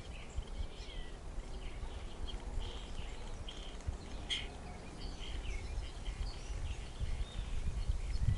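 Outdoor garden ambience: several small birds chirping and whistling in short calls, over a low, gusty wind rumble on the microphone that grows stronger near the end.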